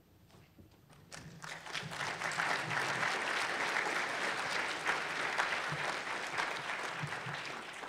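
Audience applauding to welcome a speaker, the clapping starting about a second in, swelling, and fading near the end.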